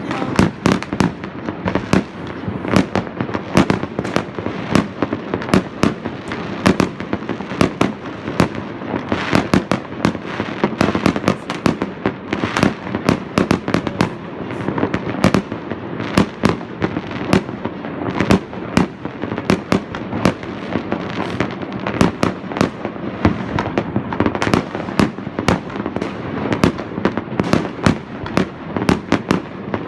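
Fireworks rockets bursting in the sky: a dense, unbroken barrage of sharp bangs and crackles, many a second, over a constant rumble.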